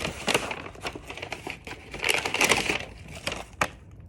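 Crinkling and rustling of a bag being handled, in uneven bursts, louder about halfway through, with one sharp click near the end.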